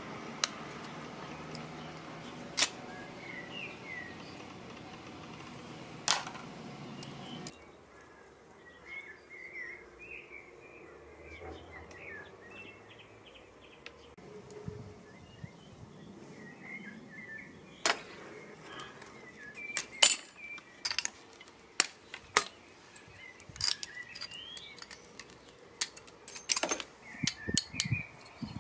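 Pliers working on old TV circuit boards: sharp clicks and snaps of the jaws and of parts breaking off, a few at first and coming in quick bunches from about eighteen seconds in. Birds chirp faintly in the background, and a low hum stops about seven seconds in.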